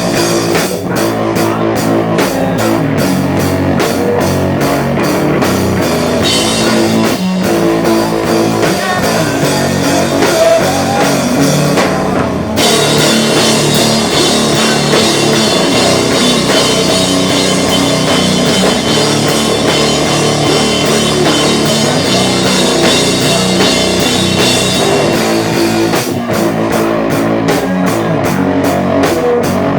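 A live rock band playing a song: a drum kit keeping a steady, fast beat under electric guitars and bass. The band's sound grows fuller about twelve seconds in.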